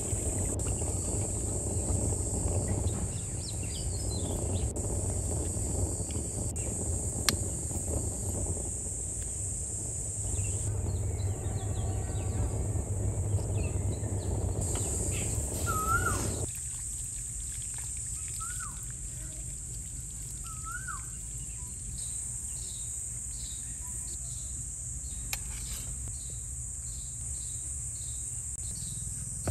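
Outdoor ambience: insects droning steadily with birds chirping. For the first sixteen seconds a louder low rushing noise lies over it. After it stops, a bird gives a few rising chirps, and near the end short high calls repeat about twice a second.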